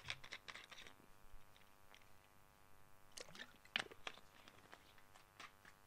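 Near silence: faint steady room hum through the podium microphone, with a scattering of soft, short clicks.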